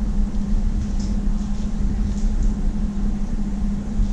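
Domestic cat growling, a low, continuous rumbling growl held with a toy mouse in its mouth.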